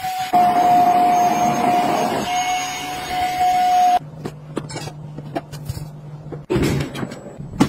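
Handheld mattress vacuum cleaner's motor running with a steady high whine and rushing air for about four seconds. It then cuts to a quieter low hum with light plastic clicks, and rustling and scraping near the end.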